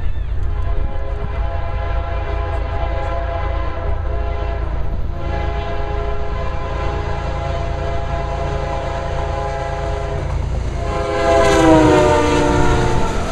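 CSX diesel freight locomotive approaching and passing with its air horn sounding in long blasts over the engine's low rumble. Near the end the horn gets loudest and drops in pitch as the locomotive goes by.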